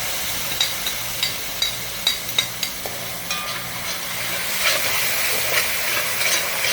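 Seasoning paste and spices frying in a pot with a little water, a steady sizzle that grows a little louder about four seconds in. A spoon stirs and clinks against the pot about twice a second.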